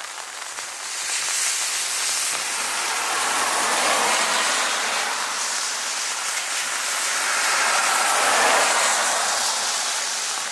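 BAE Hawk T1 jet trainers taxiing past, their single Rolls-Royce Turbomeca Adour turbofans making a steady jet hiss and whine that swells twice as each aircraft goes by.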